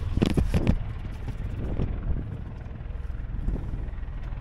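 Golf cart driving over the grass: a steady low rumble from the cart and its wheels, with a few quick knocks and rattles in the first second.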